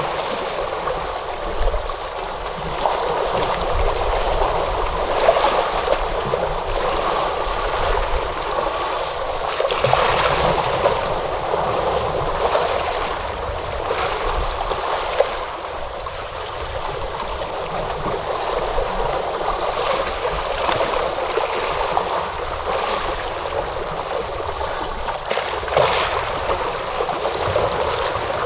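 Ocean waves washing on the shore: a steady rush of water, fairly even in level, with brief small splashes here and there.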